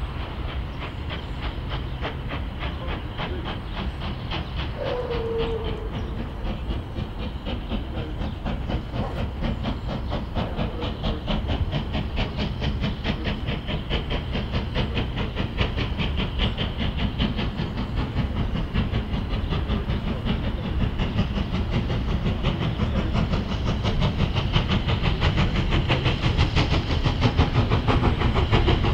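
Steam locomotive working a train toward the listener, its exhaust beating in a rapid, even rhythm with steam hiss, growing steadily louder as it approaches.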